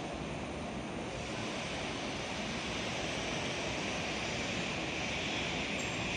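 Steady running noise of industrial machinery, an even hum and hiss with no press strokes or knocks, growing slightly louder towards the end.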